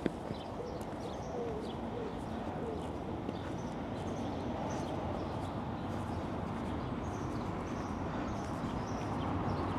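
Outdoor ambience with small birds chirping throughout over a steady background hum, and pigeons cooing in the first couple of seconds.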